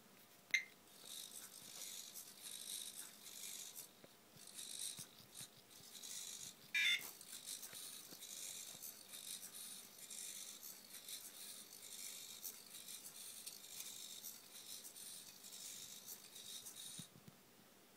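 Small homemade hexapod walking robot running: its leg servos whirr and its metal feet rattle on a desk in an uneven high-pitched chatter that stops suddenly near the end. Two short sharp chirps cut in, one just after the start and a louder one about seven seconds in.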